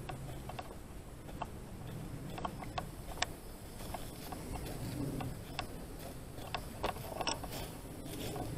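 Footsteps on a dry dirt and leaf-litter path, with scattered sharp clicks and crackles at an uneven pace over a low rumble.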